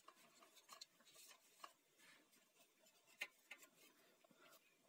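Near silence with faint rubbing and a few light clicks: a damp cloth wiping dust inside a computer's power supply, with the hand knocking lightly against the metal case. One sharper click about three seconds in.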